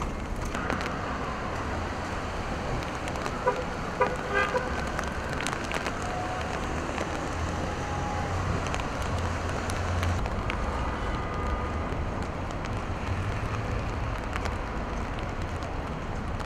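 Steady street noise of city traffic on wet roads, a continuous hiss with a low rumble of engines. Several short horn toots sound in quick succession about four seconds in.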